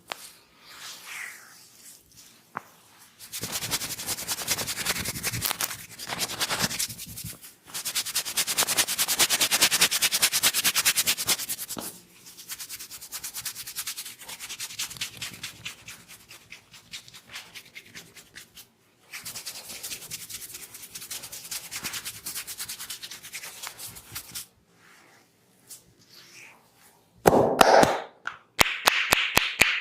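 Hands rubbing briskly over oiled hair and scalp in a head massage: fast, dense strokes in long runs with short pauses between them. Near the end comes a loud slap, then quick, even hand taps on the head, about four a second.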